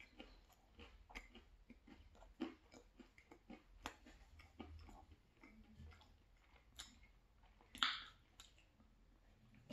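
Faint close-up chewing of a mouthful of pizza, with many small soft crunches and mouth clicks. About eight seconds in comes a single louder, brief sip from a soda can.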